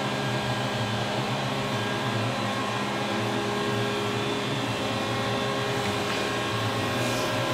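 Steady hum of a powered-up CNC Swiss lathe standing idle: its fans and motors give an even rushing sound with several steady low tones.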